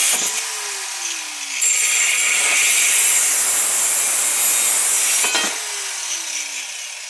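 Angle grinder with a thin cut-off wheel cutting through copper water pipe: a harsh, high grinding that breaks off just after the start with a falling whine, then a second cut of about four seconds that ends with another falling whine as the wheel winds down.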